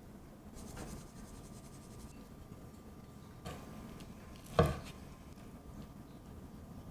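Quiet kitchen handling sounds: soft scraping and light clicks of utensils and cookware, with one sharp knock about four and a half seconds in.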